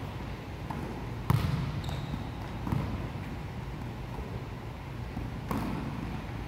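A volleyball being struck during passing drills: three sharp smacks with a short echo, about a second in, near the middle and near the end, the first the loudest, over a steady low hall rumble.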